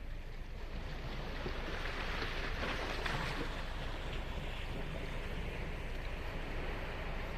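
Ocean surf washing on the beach: a continuous rushing wash that swells as a wave breaks about two to three seconds in, then eases back to a steady wash.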